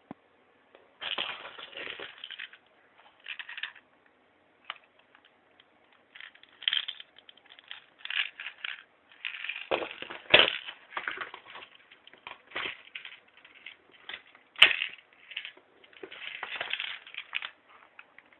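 Handling noise from an AR-style gun and its curved magazine: irregular bursts of clicking, rattling and scraping, with a few sharper knocks midway.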